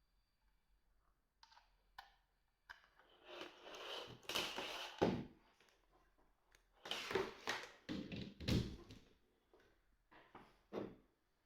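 Handling noise from a Nokia 2110i mobile phone: a few sharp clicks, then irregular rubbing and knocking bursts in two clusters, with a couple more clicks near the end. No keypad beeps or ringtone are heard.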